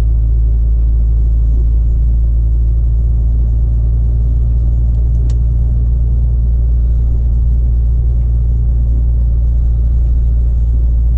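Steady low drone of a Volvo FH16's 16-litre straight-six engine and the road noise beneath it, heard from inside the truck's cab while cruising slowly. One faint click about halfway through.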